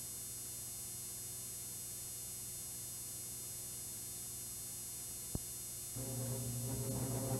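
A steady low electrical hum with a faint high whine. There is a single click about five seconds in, and a second later low sustained music notes come in and swell, the start of the film's intro music.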